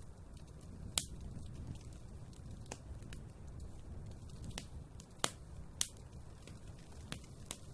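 Wood fire burning in a fireplace: a low steady rumble of flames with sharp, irregular crackles and pops from the burning logs, the loudest about a second in and twice near the middle.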